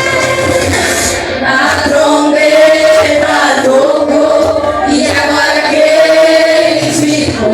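Group of voices singing a Pentecostal worship song in unison with a band, long held notes over the accompaniment.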